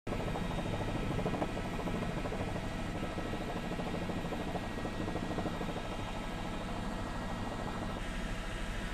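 Helicopter rotor and engine noise, a steady drone heard from on board the aircraft.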